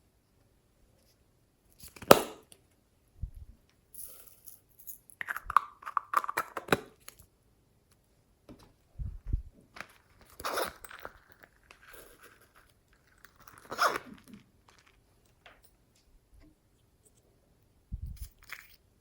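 Slime being squeezed, stretched and pulled apart by hand: sticky crackling, squelching and tearing sounds in irregular bursts with short pauses, a sharp pop about two seconds in.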